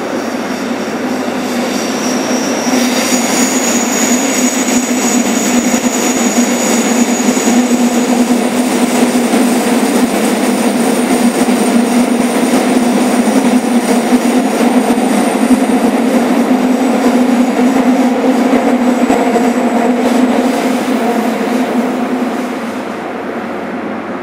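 Running sound heard aboard a JR Kyushu 103 Series 1500-subseries motor car (KuMoHa 103-1514) in the subway tunnel: a steady rumble of wheels and traction motors. It grows louder about two to three seconds in, has high whining tones for several seconds after that, and eases off near the end.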